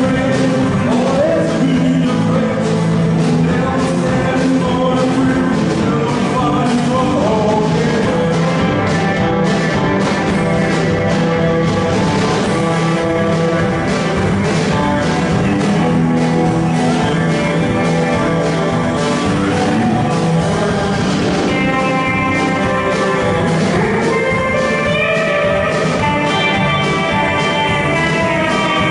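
Rock-and-roll band playing live, with a steady drumbeat under guitar and a singing voice.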